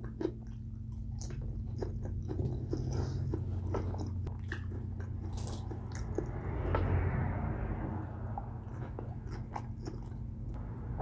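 Close-miked chewing of pizza: irregular wet mouth clicks and soft crunches of the crust, over a faint steady low hum.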